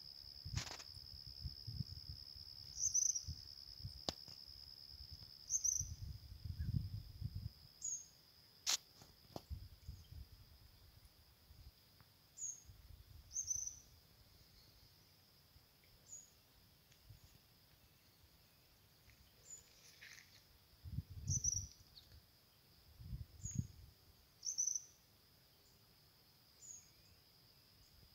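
Outdoor nature sound: an insect holds a steady high trill while a bird gives short high chirps every second or two. A few low rumbles come and go.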